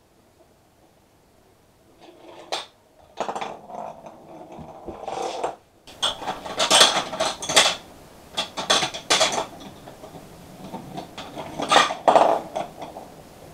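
Plastic ball rolling and clattering along a plastic marble-run track, a light irregular rattling that starts about two seconds in and comes in busier runs later on.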